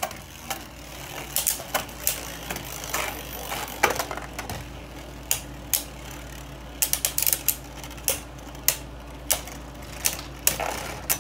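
Two Beyblade Burst tops, Brutal Lúinor and Geist Fafnir, spinning in a plastic stadium and striking each other and the walls: irregular sharp clacks, with a quick run of hits about seven seconds in.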